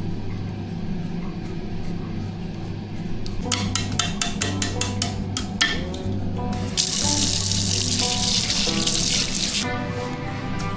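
A quick series of sharp clicks, then water running hard for about three seconds before stopping abruptly, over background music.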